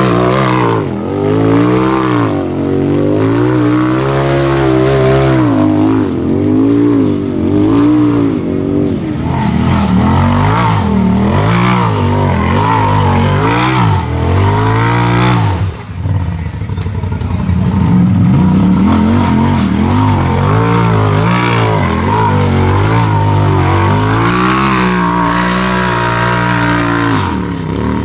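Off-road vehicle engine revving up and down over and over, its pitch rising and falling every second or two, with a brief drop about halfway through.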